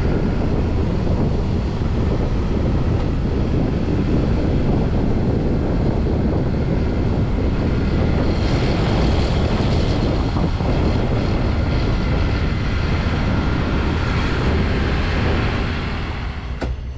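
Steady rush of wind buffeting the microphone over the running noise of a vehicle on the move, easing off near the end.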